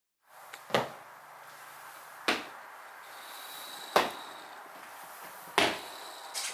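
Four loud, heavy thuds, evenly spaced about a second and a half apart, over a faint steady hiss, with a smaller knock near the end.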